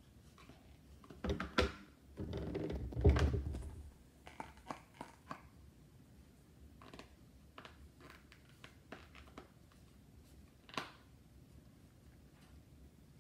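Small plastic sauce cup being handled and its lid peeled open: a couple of sharp clicks, then a louder stretch of crinkling and peeling about two seconds in, followed by scattered light clicks and taps.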